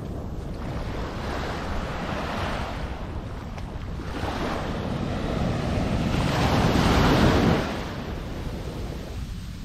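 Waves washing onto a sand beach: two swells of surf, the second louder and ending abruptly about three-quarters of the way through. A steady low rumble of wind on the microphone runs under them.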